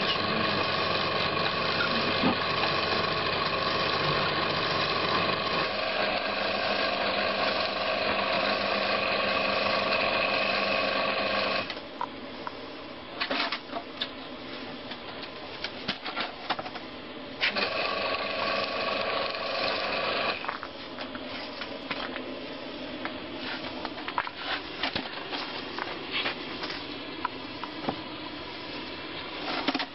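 Electric winch hoisting a spoil bucket up a timbered shaft, its motor running with a steady whine, then stopping suddenly about twelve seconds in. Knocks and clatters of the bucket being handled at the shaft head follow, with a second short winch run of about three seconds in the middle.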